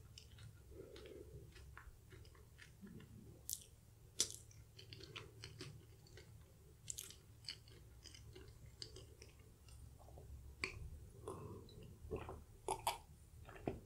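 Faint close-miked chewing of a mouthful of Portuguese egg tart, with scattered small wet mouth clicks. Near the end come a few louder clicks and swallows as she drinks from a metal cup.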